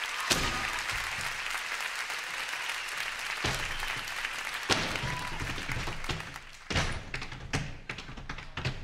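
Theatre audience applauding, thinning out after about six seconds. Scattered sharp knocks follow through the rest.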